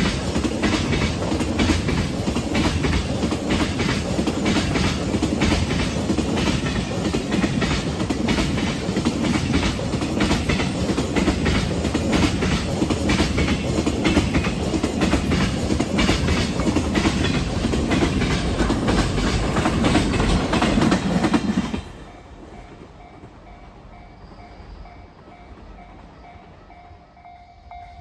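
Freight train passing over rail joints: a steady rush of wheels on rail with rapid clickety-clack as each wagon's wheels strike the joints. About three-quarters of the way through, the sound drops away suddenly, leaving a faint repeating tone.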